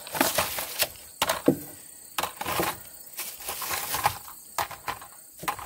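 Gear being pulled out of a car and handled: a string of irregular knocks, clatters and rustles.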